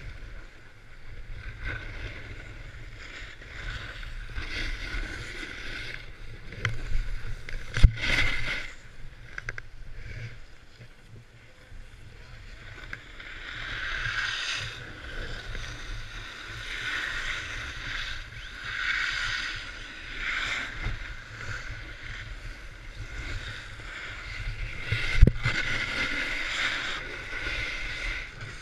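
Snow-sport edges scraping and hissing over packed, groomed snow in swelling waves as the rider turns, with wind buffeting the camera microphone. Two sharp knocks stand out, about 8 seconds in and again near the end.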